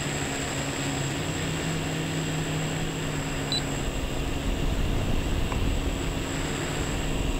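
Multirotor quadcopter's electric motors and propellers humming steadily in flight, heard through its onboard camera's microphone, with a low rumble that grows stronger about halfway through.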